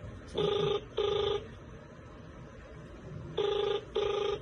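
Mobile phone ringback tone heard through the phone's speaker: a double ring, two short beeps close together, then the same pair again about three seconds later. The outgoing call is ringing at the far end and has not yet been answered.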